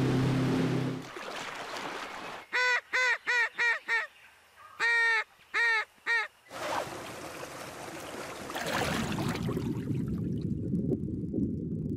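An outboard boat motor running steadily, cutting off about a second in. Then a hand-blown waterfowl call gives about eight short calls in two quick runs, followed by a steady rushing noise.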